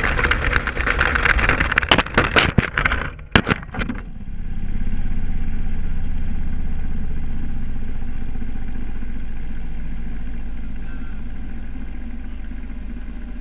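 Traxxas Stampede RC truck running fast over a gravelly road, then a run of sharp knocks about two to four seconds in as it crashes and tumbles. It comes to rest upside down, leaving a steady low hum that slowly fades.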